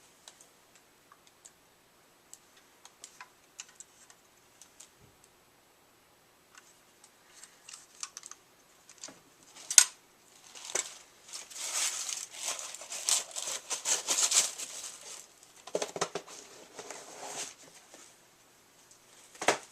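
Packaging of a boxed die-cast collectible car being handled and opened: scattered small taps and clicks, one sharp click about ten seconds in, then several seconds of dense crinkling and rustling.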